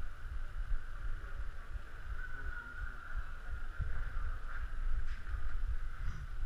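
Muffled low rumble of movement and handling noise on a body-worn GoPro action camera in its housing as the wearer moves around, over a steady hiss, with a few faint ticks.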